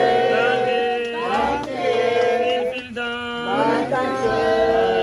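A man singing long held notes, each swooping into the next in several phrases, with other voices joining.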